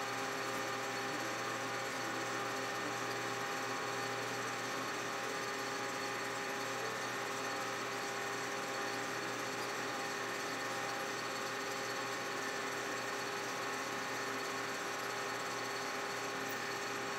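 Metal lathe running steadily while cutting a keyway into a shaft: an even machine hum with several fixed tones and no separate strokes.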